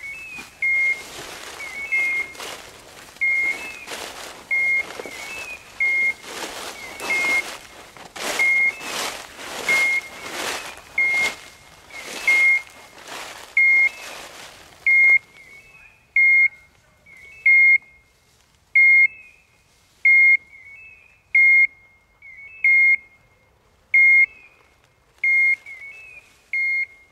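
An electronic beeper, likely a hunting dog's beeper collar, beeping one short high note about every 1.3 s. A rustling noise runs under the beeps for the first half and stops about halfway through.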